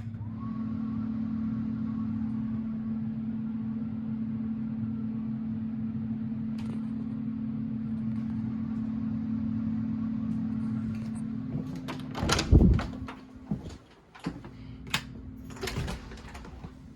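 Goodman gas furnace's blower starting up in cool mode: a faint whine rises in the first half second and settles into a steady hum. From about twelve seconds in, a run of loud, irregular knocks and bangs sounds over the quieter hum.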